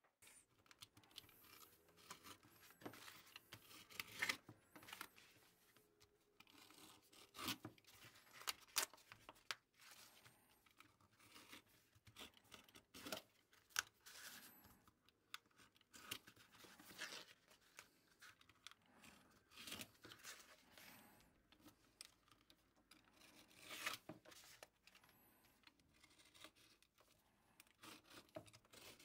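Paper being handled at close range: magazine cutouts torn and rubbed down by hand onto a wooden board, heard as a run of short, irregular crackly tears and rustles.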